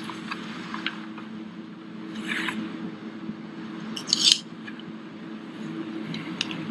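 Stylised film sound effect of a business card being slid out of its case and handled: a short swish about two seconds in and a louder, sharper one about four seconds in, made to sound like a Japanese sword being drawn. A low steady hum runs underneath.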